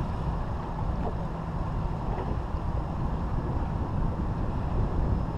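Steady low rumble of wind buffeting the microphone on open water.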